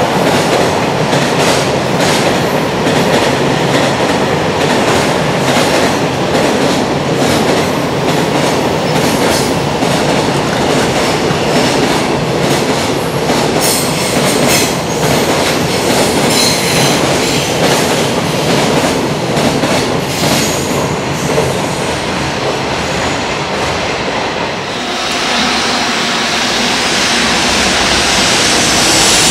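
A long freight train of container wagons passes at speed on elevated track with a loud, steady rumble and the rapid clatter of wheels over rail joints. There are brief high-pitched wheel squeals in the middle. About 25 seconds in, the sound changes abruptly to an even rushing noise.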